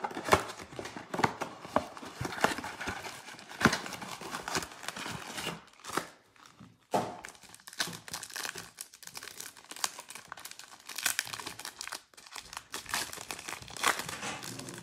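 A 2020 Panini Select football box is torn open by hand, then its foil card packs are crinkled and ripped open. The result is a run of sharp crackles and rips, with a brief lull about six seconds in.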